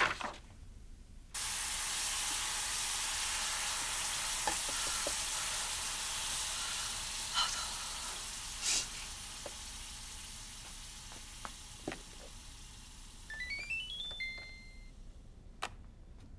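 Food sizzling in a hot frying pan. The sizzle starts suddenly about a second in and slowly dies down, with a few clicks of utensils. Near the end comes a quick run of electronic beeps climbing in pitch, then one held beep.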